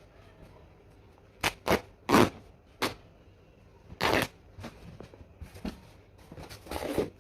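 A series of short clattering and scraping handling noises, about half a dozen, with a longer scrape near the end.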